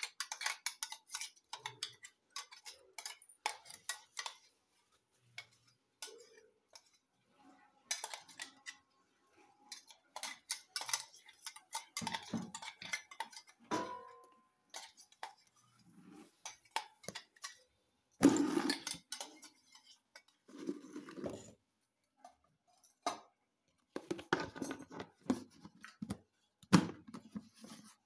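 Metal kitchen utensils clinking, scraping and clattering against pots and pans in irregular bursts, with short quiet gaps between them. The loudest clatter comes a little past the middle.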